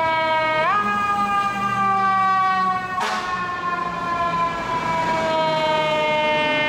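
Fire engine siren sounding one steady tone that jumps up in pitch about half a second in, then slowly falls for the rest. Traffic rumbles beneath it, with a short knock about three seconds in.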